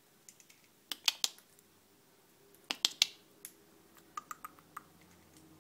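Parrot's beak clicking and knocking on a hard plastic foraging toy as it works at the barrel. The sharp clicks come in two quick clusters, about a second in and about three seconds in, with a few fainter ticks near the end.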